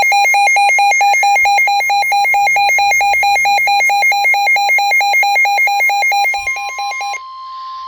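A weather radio receiver's alert alarm beeping rapidly, about four beeps a second, over NOAA Weather Radio's steady 1050 Hz warning alarm tone, which marks a warning broadcast. The beeping stops about seven seconds in, leaving the steady tone alone.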